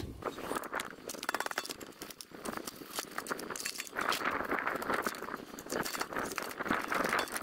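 A small brush scrubbing the carbon-fouled bore of a throttle body as petrol is squirted over it in a metal bowl: quick scratching strokes with many small clicks, denser from about four seconds in.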